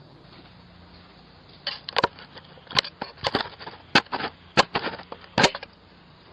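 Repeated hard blows striking a Ring doorbell camera, heard through the camera's own microphone: about nine sharp knocks and bangs in a little under four seconds, starting almost two seconds in.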